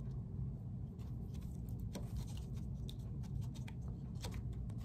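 Baking soda poured into a plastic cup of water while being stirred: scattered light clicks and scrapes of the stirrer against the plastic, over a steady low hum.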